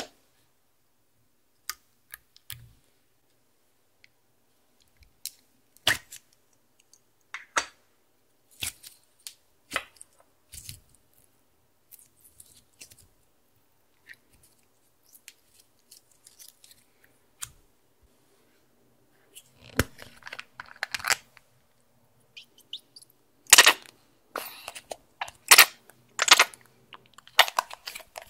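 Clear glitter slime being stretched and pressed by hand, giving scattered sticky pops and crackles. About two-thirds of the way in the crackling grows denser and louder, with several sharp clicks near the end.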